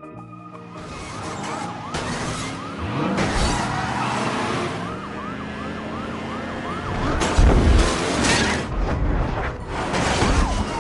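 Police siren in a fast yelp, sweeping up and down about three times a second over a noisy rumble. About halfway through, a loud low rumbling thump and crash-like noise takes over.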